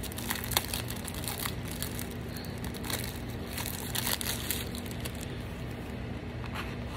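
Clear plastic wrapping crinkling and crackling as it is handled and pulled off a small case, the crackles thinning out near the end.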